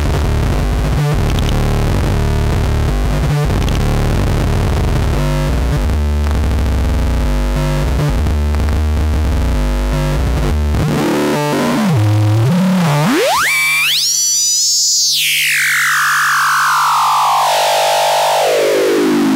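Schlappi Engineering Angle Grinder, an all-analog quadrature VCO and waveshaper eurorack module, giving a harsh, buzzy, noisy tone with a low drone and a few clicks while linear FM is dialled in. About twelve seconds in, its pitch sweeps steeply up to a high whistle, then glides slowly back down to a low tone.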